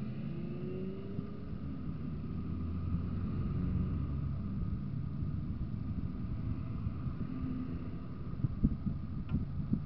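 A car driving, heard from inside the cabin: a steady low rumble of engine and tyre noise, with a few sharp knocks near the end.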